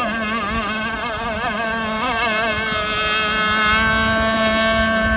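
Enforcer Stingray RC hydroplane's motor whining at full speed, its pitch wavering and then holding steady about three seconds in.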